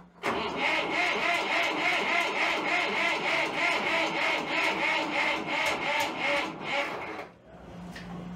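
Starter cranking a Case 485 tractor's diesel engine, with an even rhythm of about three compression pulses a second; it stops about seven seconds in.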